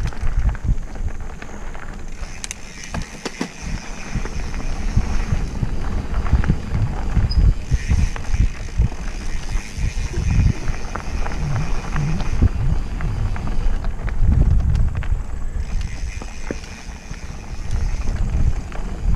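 Mountain bike ride on a dirt forest trail: wind buffeting the microphone, with the tyres and bike rattling over the ground. A high, steady buzz comes and goes three times.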